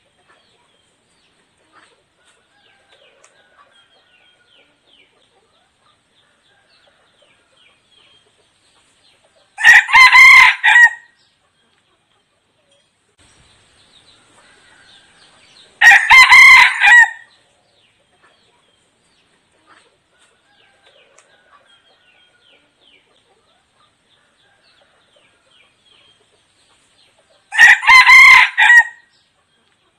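Decoy red junglefowl rooster crowing three times, each crow a short loud call of about a second and a half, at about ten, sixteen and twenty-eight seconds in. This is the call used to lure wild junglefowl cocks.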